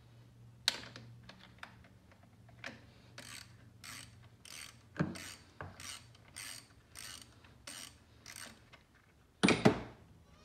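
Socket ratchet clicking in a run of short back-strokes, about two a second, as a bolt is turned, with a couple of knocks of the tool against metal; the loudest knock comes near the end.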